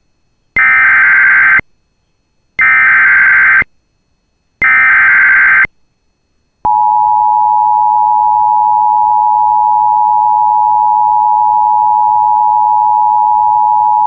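Emergency Alert System SAME header: three identical one-second bursts of shrill digital data tones, a second of silence between each. About six and a half seconds in, the steady two-tone EAS attention signal starts and holds, announcing an incoming severe thunderstorm warning.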